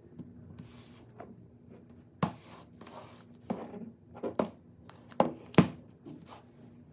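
Hands handling packaging on a desk: a handful of sharp taps and clicks with light rustling between them, the two loudest close together about five seconds in.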